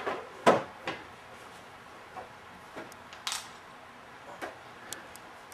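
A string of short, sharp knocks and clatters at uneven intervals, the loudest about half a second in and another strong one a little past three seconds.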